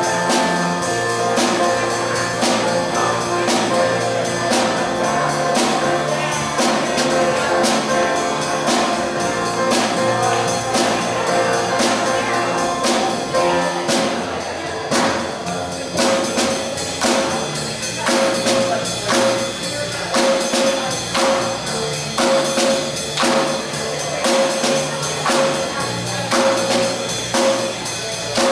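Live worship band playing: keyboard piano, drum kit and a plucked fretted string instrument. About halfway through, the drums settle into a steady, evenly spaced beat.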